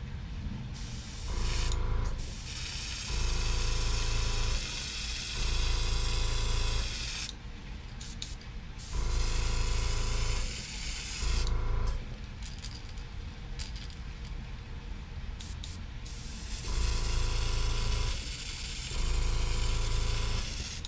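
Airbrush spraying paint in on-and-off hissing bursts, about six passes of one to five seconds each, as more green is layered on a lure to darken it. A low hum comes and goes in step with the bursts.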